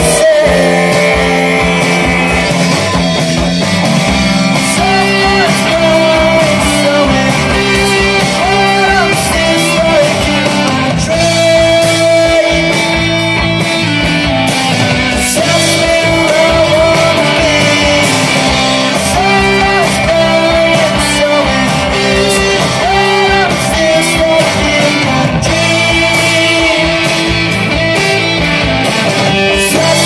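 Live rock band playing at full volume: distorted electric guitars, bass guitar and a drum kit, with a lead vocalist singing over them.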